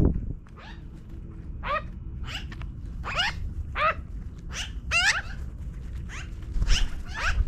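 Magpies calling: a string of short, harsh calls, most rising slightly in pitch, about one to two a second.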